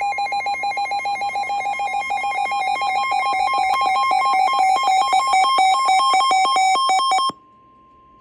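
NOAA weather radio alert: a loud, rapid electronic warble that rings like a telephone, with a steady warning-alarm tone under it, signalling that a severe thunderstorm warning is being issued. The warble cuts off suddenly about seven seconds in, leaving the steady tone faintly on its own.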